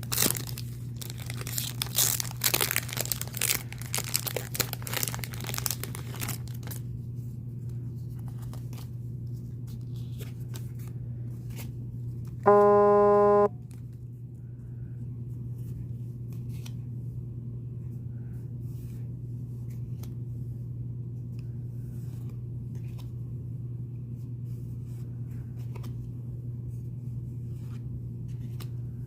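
Pokémon booster pack's foil wrapper being torn open and crinkled for the first several seconds, then faint ticks of the cards being handled. About halfway through, a loud steady buzzing tone sounds for about a second; a low steady hum runs underneath.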